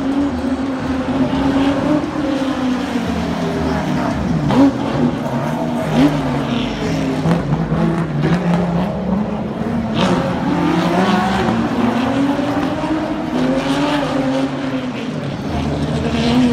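Air-cooled flat-six boxer engines of late-1970s to early-1980s Porsche 911 race cars revving up and down repeatedly, with a few sharp cracks.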